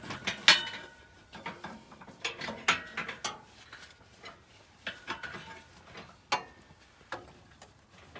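Irregular metal clanks and clicks, the loudest about half a second in with a brief ring, as a V8 engine on a hoist is worked down into a car's engine bay to seat it on its mounts.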